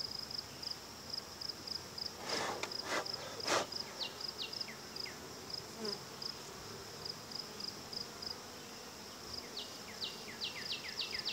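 Insects chirping outdoors in a steady, rapid, high-pitched pulse, with a few short falling chirps. Three brief rustling knocks come about two to three and a half seconds in.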